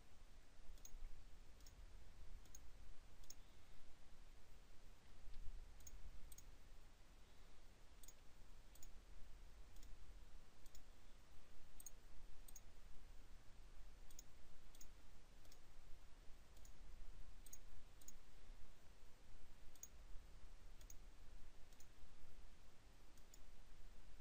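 Faint computer mouse clicks, scattered at roughly one a second and sometimes in quick pairs, over a low steady hum.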